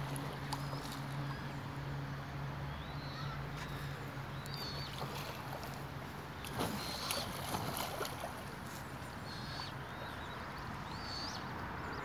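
Steady rush of river water with short, high bird chirps every second or two. A low steady hum fades out about four seconds in, and a few light clicks come around the middle.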